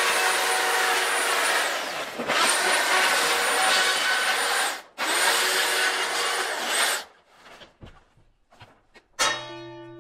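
A power tool runs in three long passes, cutting through a paper backdrop, its motor whining over the noise. Softer paper rustling and crackling follows. About nine seconds in, a single struck musical note rings out and sustains.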